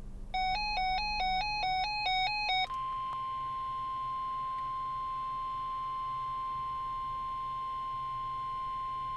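Weather radio test alert playing through a RadioShack 12-259 receiver's speaker. An electronic tone switches back and forth between two pitches for about two seconds, then the steady 1050 Hz NOAA Weather Radio warning alarm tone holds for about six seconds and cuts off sharply.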